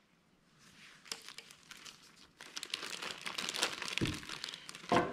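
A clear plastic bag crinkling as it is handled. The crackle starts faint, grows thicker and louder, and peaks about three to four seconds in.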